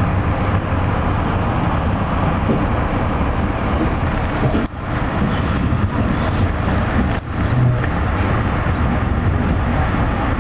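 Running noise of an Amtrak Hiawatha passenger train rolling along the track, heard from inside a coach: a steady low rumble that dips briefly twice around the middle.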